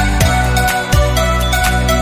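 Background music with a steady beat over held tones.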